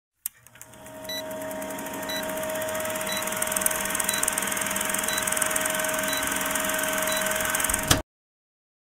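Old-film countdown sound effect: a steady film-projector whirr and hiss with a short high beep once a second. It swells up at the start and cuts off suddenly near the end.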